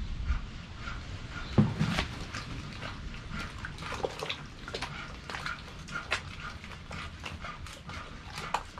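Wet squelching and slapping of hands kneading and rubbing a large raw octopus in a steel bowl to strip off its slime, in many quick irregular squishes. There is a louder knock about a second and a half in.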